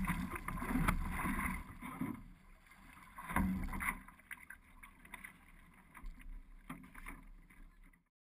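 Water splashing and rushing against a one-person outrigger canoe's hull as it is paddled through choppy sea, coming in uneven surges that thin out and stop abruptly near the end.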